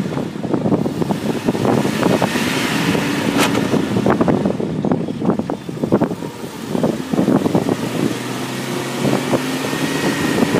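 Jeep driving slowly over loose sandy dirt: the engine runs with a low steady hum under irregular crackling from the tyres on the ground, and wind buffets the microphone in gusts.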